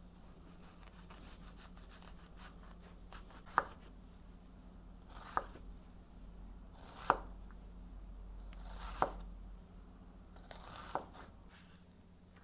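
Kitchen knife dicing an onion on a wooden cutting board: five sharp knocks of the blade on the board, about two seconds apart, with softer cutting sounds between.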